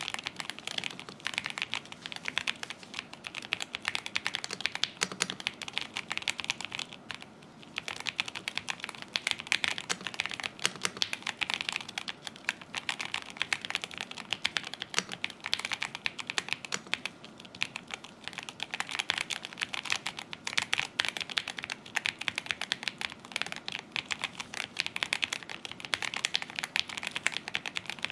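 Mechanical keyboard fitted with Gateron Unicorn linear switches being typed on in fast, continuous runs of keystrokes, with a brief pause about seven seconds in.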